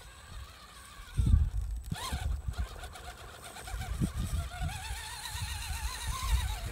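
Wind buffeting the microphone in low gusts, strongest about a second in. Under it runs the faint warbling whine of an electric RC rock crawler's motor as the truck crawls over rock, a little stronger in the second half.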